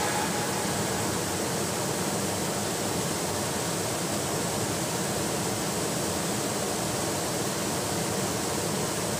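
Water pouring over a weir's spillway and churning in the pool below, a steady rushing sound.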